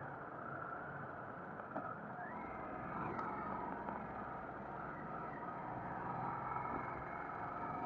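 Harley-Davidson Sportster's V-twin engine running as the motorcycle is ridden at low speed, easing off and then accelerating again near the end with its pitch rising, heard along with wind noise from riding.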